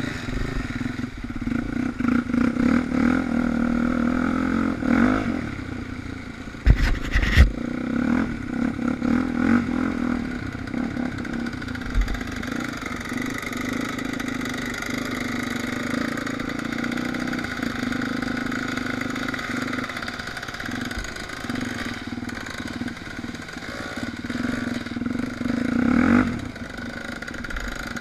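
Suzuki DR350 single-cylinder four-stroke dirt bike engine running under way, heard from a camera mounted on the bike, its note rising and easing with the throttle. A few sharp knocks about seven seconds in.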